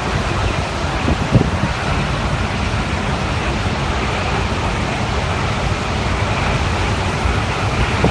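Hurricane wind and rain, a steady loud rush with wind buffeting the microphone, and a couple of sharper gusts about a second in.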